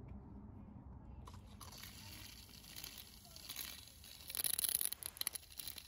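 Water jetting from the Vario lance of a Karcher K5 Compact pressure washer: a hiss that starts a little over a second in and is loudest and most uneven about four to five seconds in.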